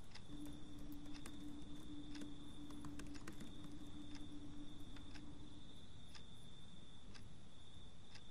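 A clock ticking about once a second over faint room tone, with a thin steady high whine and a low hum that stops a little before six seconds in.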